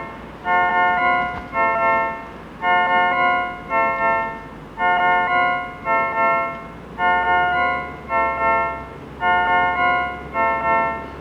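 An electronic keyboard with an organ-like tone plays a repeating pattern of chords, about one a second, each struck sharply and then fading, over a faint low hum.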